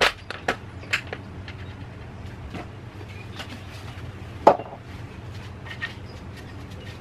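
Clicks and clunks of engine parts being handled as the valve cover comes off a BMW M50 engine, a few in the first second and one louder knock about four and a half seconds in, over a low steady hum.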